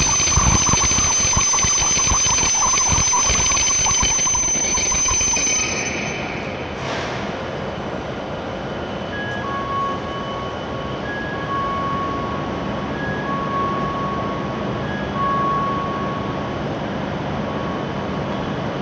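W7 series Shinkansen train braking to a stop, with a steady high-pitched whine over a rumble of wheels that cuts off about six seconds in. Then a two-note electronic chime repeats about every two seconds.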